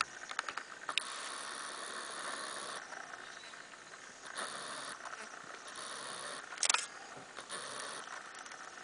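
White rhinoceros drinking at the water's edge: bouts of slurping and sucking water, with a few sharp clicks near the start.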